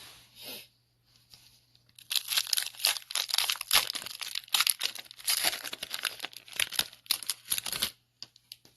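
Plastic wrapper of a trading card pack being torn open and crinkled by hand: a dense run of crackling and tearing from about two seconds in until near the end.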